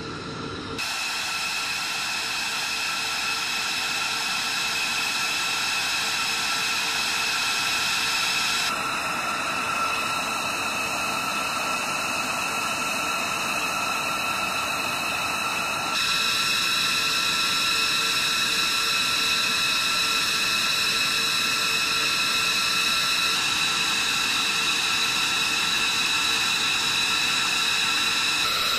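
Steady high-pitched jet turbine whine over a rushing hiss, as of jet engines running on an airfield flight line. Its tone and level shift slightly a few times.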